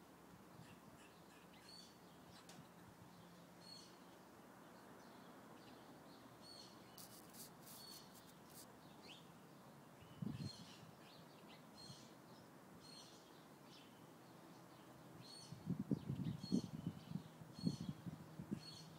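A squirrel's repeated short, high alarm chirps, about one or two a second, scolding a cat nearby. Near the end a cluster of low rumbling thumps is the loudest sound.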